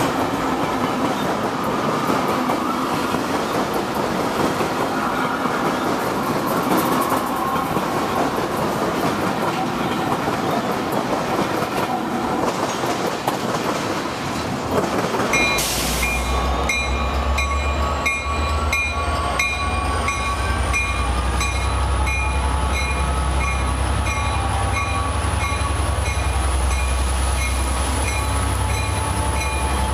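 A BNSF freight train of GE locomotives rolls past with a steady rush and clatter of wheels on rail, ending about halfway. Then a Metra F59PH diesel locomotive pulls out with a deep steady engine hum, a bell-like tone repeating at an even pace, and a high whine that rises and then holds steady.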